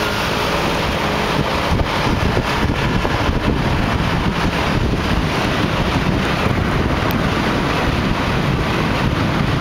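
Wind rushing over the microphone of a camera on a moving vehicle, uneven and gusting, with road and engine noise underneath.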